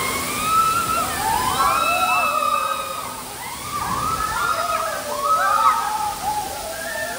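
Many people shouting and calling over one another above a steady rush and splash of water at a water park.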